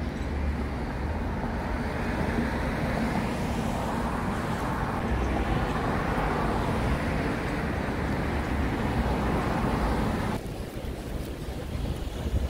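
Urban street ambience: a steady rumble of road traffic with a general outdoor wash of noise. About ten seconds in the higher part of the noise cuts off abruptly, leaving mostly the low rumble.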